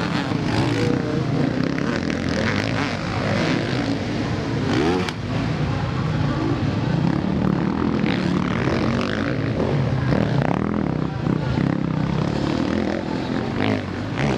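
Several motocross bikes' engines running hard and revving up and down as they race past on a dirt track, with the pitch rising and falling as the riders work the throttle.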